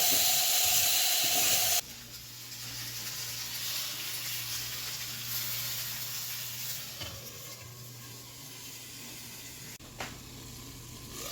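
Potatoes frying in hot oil in a pan, a steady sizzle. It is loud at first, then drops abruptly about two seconds in to a quieter sizzle over a low steady hum.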